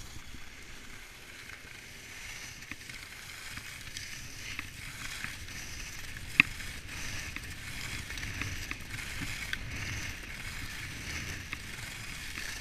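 Skis sliding and carving over groomed packed snow: a steady scraping hiss with a low wind rumble on the microphone, and one sharp click about six seconds in.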